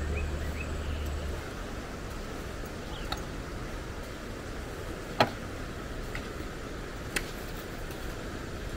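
Sharp knocks of shovels striking wet sand and the truck bed during hand-loading: three in all, the loudest about five seconds in, over a steady outdoor hiss. A low steady hum cuts out about a second and a half in.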